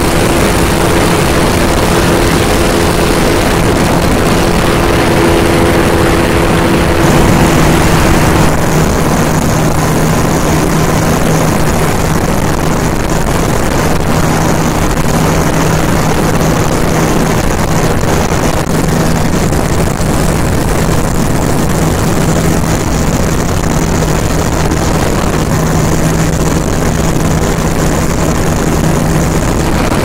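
Steady engine and propeller drone of a light aircraft in flight, mixed with rushing air, the engine note dropping slightly about seven seconds in.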